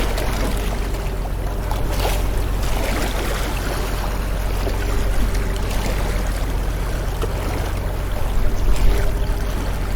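Sea waves washing and splashing: a steady wash of water noise over a low rumble, swelling briefly about two seconds in and again near the end.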